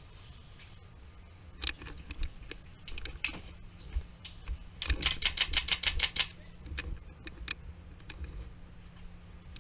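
Airsoft gun firing a rapid string of about nine shots, some seven a second, lasting just over a second around the middle. Scattered single clicks and knocks come before and after.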